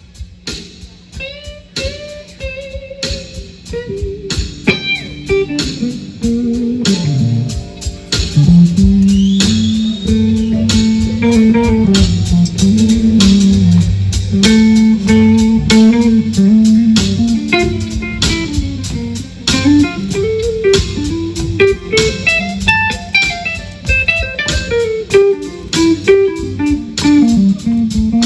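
Live electric blues band, led by an electric guitar playing single bent notes. It is sparse and quieter at first, then a falling slide leads into the full band, with bass underneath, coming in louder about eight seconds in.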